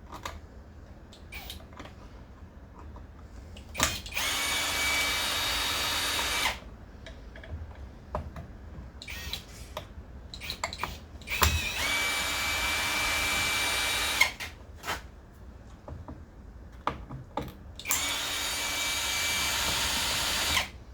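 Electric drill/driver running in three steady bursts of about two and a half seconds each, spinning out screws from a plastic string-trimmer housing, with small clicks and handling knocks between the runs.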